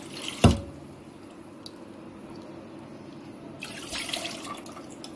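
Thick, freshly ground green masala liquid pouring and dripping from a steel mixer-grinder jar into a non-stick pan, with a sharp knock about half a second in.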